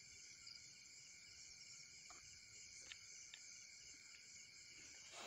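Near silence with faint crickets chirping steadily, and a few soft clicks partway through.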